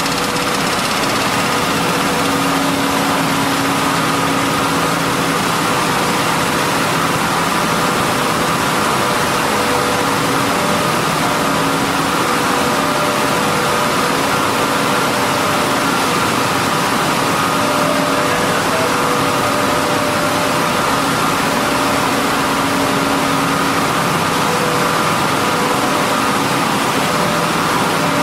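A 30-ton-per-day millet milling line running at full operation: a loud, steady machine din of many motors and vibrating feeders together, with several held humming tones over a dense whirring noise.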